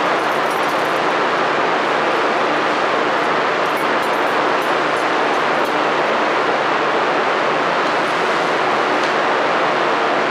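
Loud, steady static hiss, even and unchanging throughout, with no beat or voice over it.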